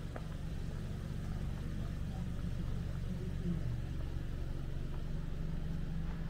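Steady low rumble of city street traffic, with a vehicle engine running close by.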